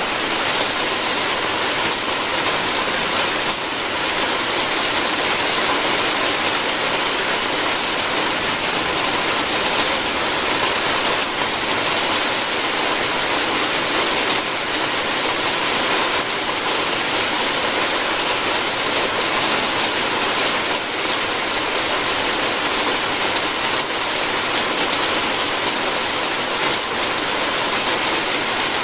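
Steady heavy rain falling on a roof, a dense even patter.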